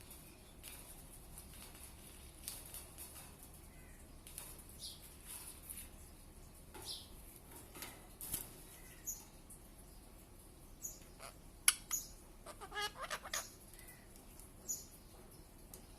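Pet parrot making short, high chirps and squeaks every second or two, with a few sharp clicks and a longer run of harsher calls about three-quarters of the way through.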